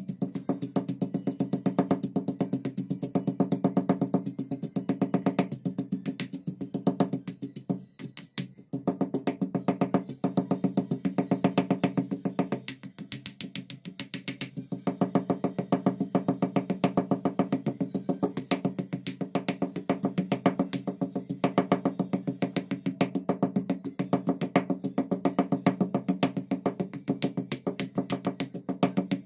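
Background music with a steady, fast percussive beat.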